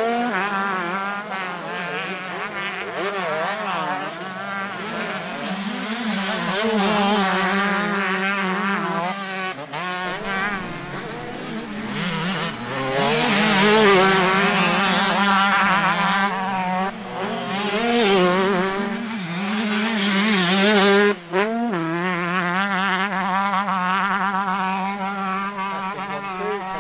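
Motocross bike engine revving hard, its pitch climbing and dropping again and again with throttle and gear changes, briefly cutting out about three-quarters of the way through.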